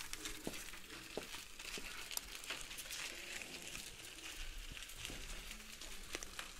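Light crackling with scattered sharp clicks from a bicycle rolling over a gritty dirt lane.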